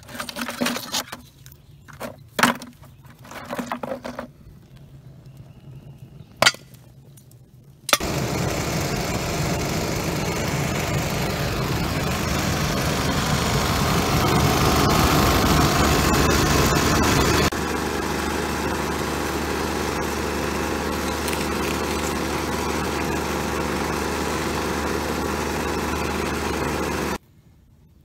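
Chunks of iron ore rock knocking together in a plastic bucket, several sharp clacks. From about eight seconds in, a loud steady blower forces air through a pipe into a clay bloomery furnace to roast the ore. The blower noise drops a little about two-thirds through and cuts off suddenly just before the end.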